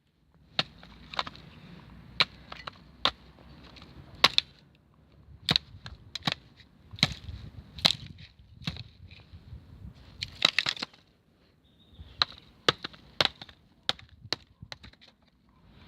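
A Stanley knife blade stabbing repeatedly into a plastic TV remote: a string of sharp, irregular cracks and knocks, with a quick flurry about ten seconds in.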